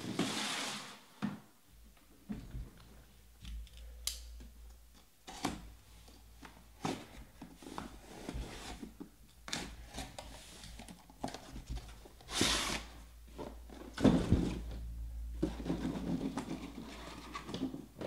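A cardboard case being cut and torn open by hand and its boxes pulled out: irregular bursts of scraping, tearing and rustling cardboard with sharp knocks.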